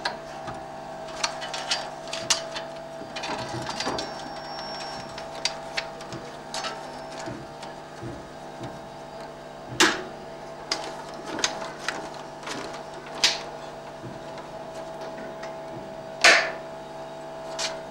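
Cinema projector running with a steady hum, overlaid by scattered clicks and knocks. A few louder clicks come about ten, thirteen and sixteen seconds in, while a yellow rotary switch on the projector's control panel is turned by hand.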